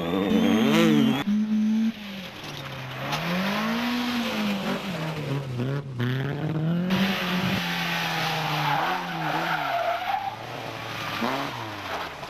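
Rally car engines revving hard, the pitch climbing and dropping again and again through gear changes and lifts off the throttle, over a wash of tyre and road noise. The sound jumps abruptly a few times as one shot cuts to the next.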